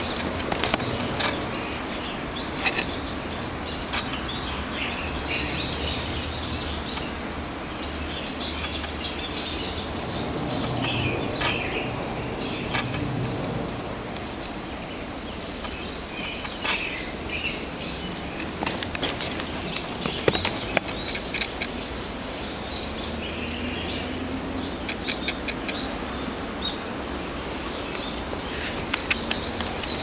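A mix of wild birds chirping and calling, short phrases scattered throughout over a steady low background noise, with a few sharp knocks from the handheld camera.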